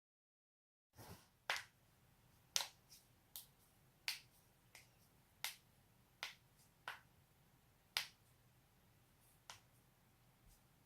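Joints being cracked: about a dozen sharp, single pops at irregular intervals, some loud and some faint, starting about a second in.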